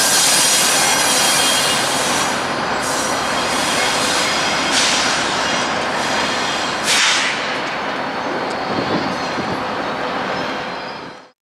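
Wheels of a VIA Rail passenger train, drawn by P42 Genesis diesel locomotives, squealing as it rolls along curving yard track, with high squeal tones over a steady rumble. There are two brief louder squeals about five and seven seconds in. The sound slowly fades as the train moves away, then cuts off near the end.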